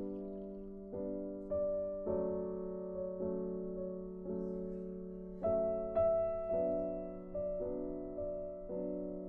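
Background piano music, single notes and chords struck at a slow, even pace, each left to ring and fade.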